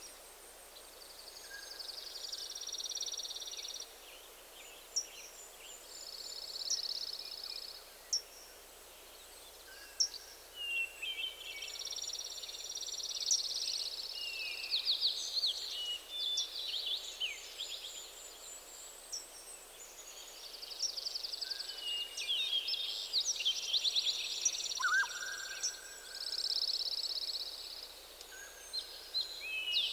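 Songbirds singing: trilled phrases about two seconds long, repeated many times, with quick chirps and short whistles in between, over a faint steady hiss.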